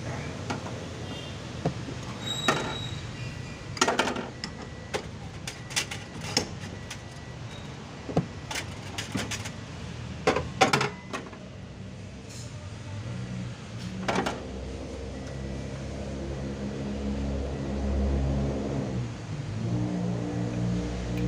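Sharp metallic clinks and knocks of tools and parts being handled during repair work on a car's fuel pump assembly. In the second half these give way to an engine-like hum that runs steadily and shifts in pitch a few times.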